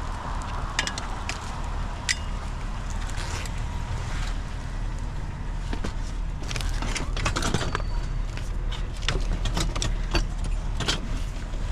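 Metal scrap clinking, rattling and knocking as a child's bike is pushed and jostled into a packed van, with the knocks coming thickest in the second half. Under it runs a steady low hum, fitting a vehicle engine idling.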